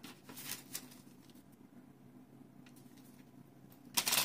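Plastic mail packaging rustling and crinkling as it is handled, with a brief rustle early on, a few faint ticks, and a louder crinkle near the end.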